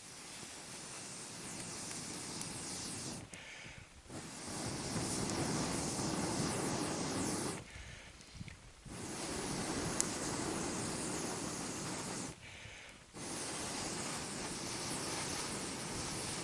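Air blown through a blow tube into a small kindling fire: four long, steady hissing blows of a few seconds each, broken by short pauses for breath, feeding oxygen to the young flames. A single sharp click about ten seconds in.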